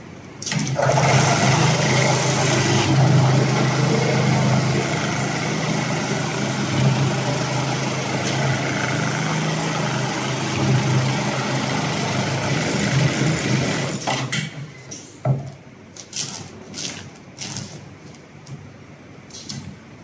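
HighTex FIBC911-400H computerized pattern sewing machine running, stitching a lifting loop through the big-bag fabric with a steady, loud mechanical drone. It stops about 14 seconds in, followed by several sharp clicks and knocks.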